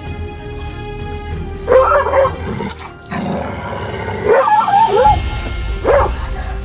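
A dog gives three bursts of short, pitch-bending cries: about two seconds in, around four and a half seconds in, and near the end. Background music plays steadily underneath.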